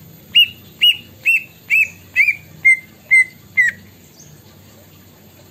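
Green leafbird (cucak ijo) singing its learned plaintive cuckoo (kedasih) imitation: a series of eight loud whistled notes, about two a second. The first five notes are arched and higher, the last three lower, and the final note slides down.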